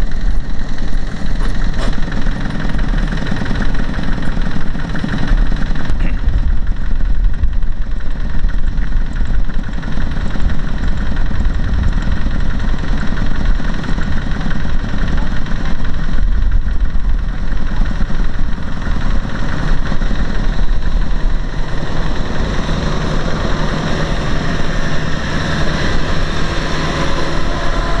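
Engine of a small farm vehicle running steadily with a dense low rumble.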